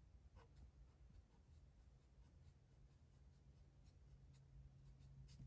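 Faint scratching of a felt-tip marker drawing on paper, as light scattered strokes over near silence.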